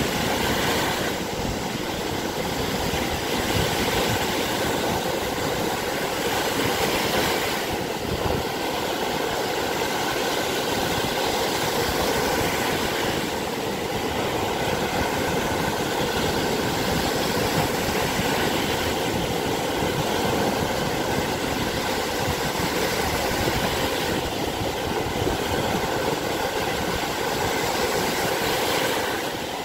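Small Lake Michigan waves breaking and washing up a sandy shore: a steady rushing wash of surf that swells and eases slightly.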